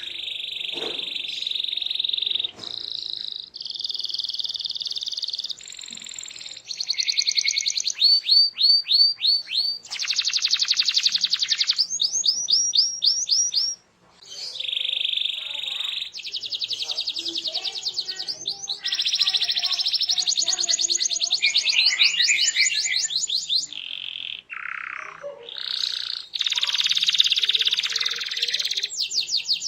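Domestic canary in full song: a long, loud run of rapid trills and rolls, switching to a new phrase every second or two, with a short break about halfway.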